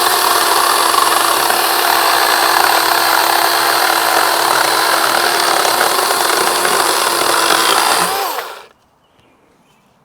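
Dewalt 20V Max XR brushless cordless chainsaw cutting through old reclaimed framing lumber: a loud, steady electric motor whine with chain and wood-cutting noise. About eight seconds in the trigger is released and the motor winds down with a falling pitch and stops.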